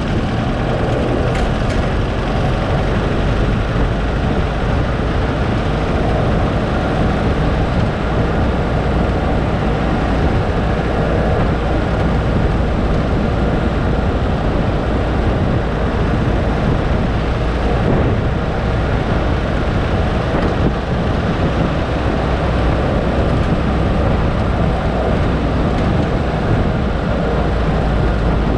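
Steady rumble of a vehicle being driven: engine, tyre and wind noise with a heavy low end, unchanging throughout.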